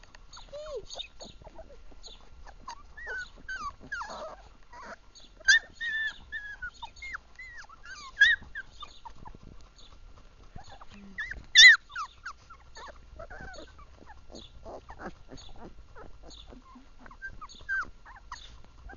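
Three-week-old Labrador puppy whimpering in many short squeaks that bend up and down in pitch, the loudest call about twelve seconds in.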